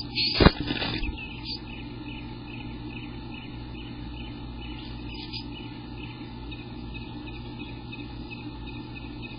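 A sharp knock about half a second in as an adult male eastern bluebird leaves the nest box, then a steady low hum with faint bird chirps.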